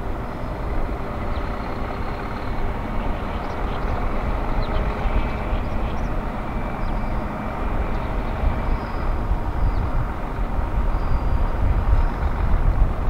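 Heavy tractor unit's diesel engine running as it slowly hauls a loaded low-loader trailer. It is a steady deep rumble that grows a little louder near the end.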